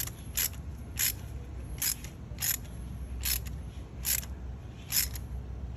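Hand ratchet clicking in single sharp clicks, about eight of them, spaced roughly half a second to a second apart. Each click comes from a short stroke on the handle while a new spark plug is snugged the last little bit tight.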